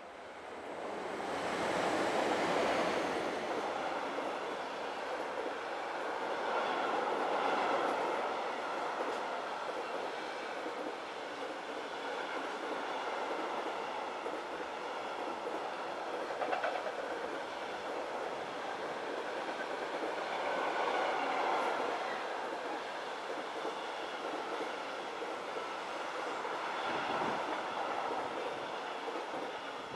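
Freight train hauled by SBB electric locomotives passing at speed: the locomotives go by loudly about two seconds in, then a long string of container and tank wagons follows with a steady rolling rumble and the clickety-clack of wheels over the rails.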